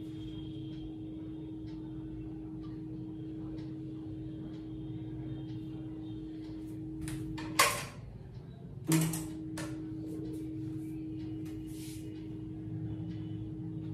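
Electrical hum from a household voltage stabilizer. It cuts off with a click about seven and a half seconds in and comes back on with another click about a second and a half later. The stabilizer has failed.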